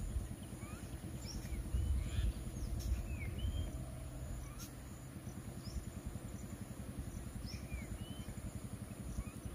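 Scattered short bird chirps over a steady low rumble, such as an idling engine or wind.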